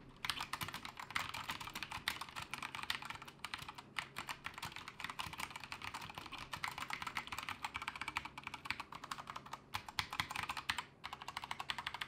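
Keychron K2 mechanical keyboard with Gateron Brown tactile switches being typed on: a fast, steady stream of key clacks, broken by short pauses about four seconds in and again near eleven seconds.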